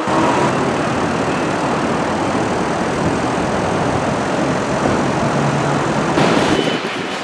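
Electric commuter train on the Hanshin line running past close by: a loud, steady rumble of wheels on the track that starts abruptly and eases off near the end.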